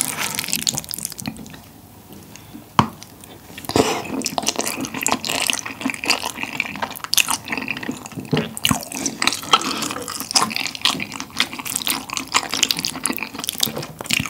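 Close-miked eating sounds: a wooden spoon stirring saucy flat glass noodles and rice in a small bowl, with one sharp click about three seconds in. From about four seconds in come continuous wet chewing and lip smacks.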